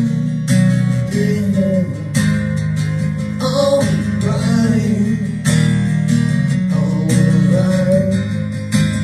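Recorded song playing: strummed acoustic guitar chords with a voice singing a gliding melody over them.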